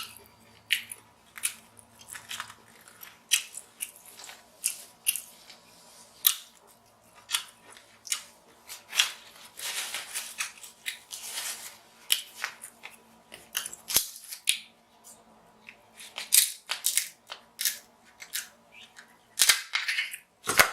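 King crab leg shells being snipped and cracked open, a run of sharp, irregular snaps about once or twice a second, with some chewing between.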